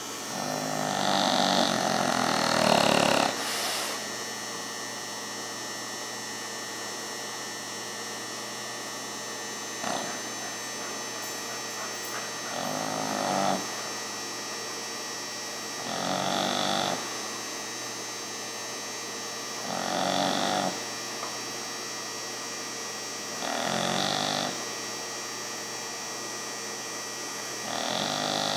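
Beagle snoring in her sleep: a snore about every four seconds, each lasting about a second, the first one longest and loudest. A steady electrical hum runs underneath.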